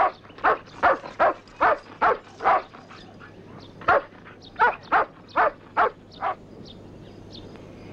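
A dog barking repeatedly, about two barks a second, with a short pause partway through; the barking stops about six seconds in, leaving a few faint high chirps.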